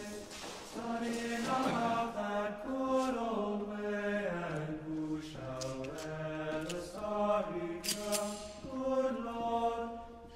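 A slow song with long held sung notes, the melody stepping down in pitch and rising again.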